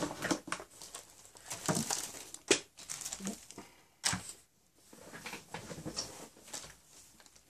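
Packaging being handled: crinkling plastic and cardboard rustling, with a couple of sharp knocks about two and a half and four seconds in.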